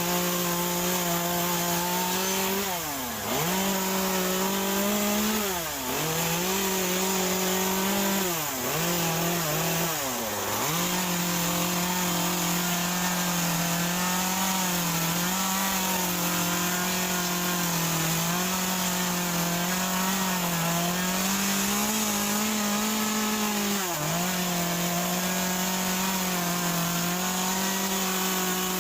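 Two-stroke carving chainsaw running at high revs while cutting into wet Western red cedar. The engine note stays steady but dips sharply and recovers about five times, mostly in the first ten seconds and once more near the end, as the chain bites in and the saw is throttled through the cuts.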